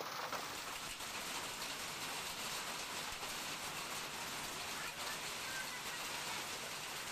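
Heavy rain falling on a road: a steady, even hiss.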